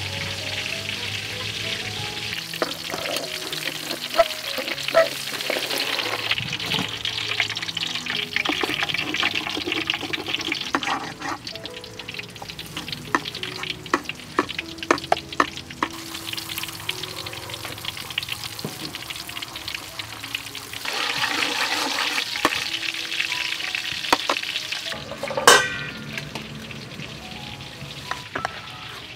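Hot oil sizzling as food fries in a wok, with metal utensils clinking and scraping against the pan and bowl. The sizzling grows louder again about 21 seconds in, and a sharp metallic clink comes a few seconds later.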